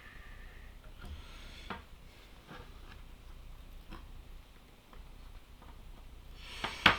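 Small parts of a DIY synthesizer kit being handled during assembly: scattered light clicks and taps, with a sharper, louder click near the end.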